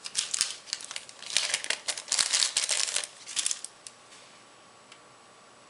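Packaging crinkling and rustling as it is handled, in a dense run of crackles for about three and a half seconds, then stopping.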